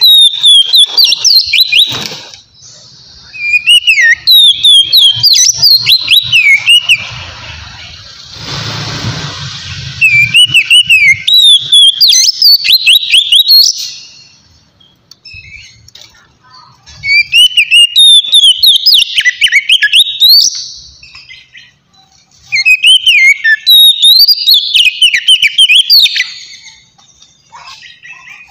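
Oriental magpie-robin (kacer) singing its loud, clear 'ngeplong' song: about five phrases of quick, varied whistled notes that swoop up and down, each a few seconds long with short pauses between. A brief rustling noise comes between two of the phrases.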